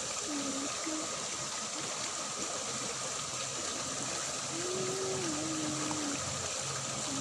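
Water running steadily through a small ditch. A faint wavering hum comes through briefly near the start and again from about four and a half seconds in.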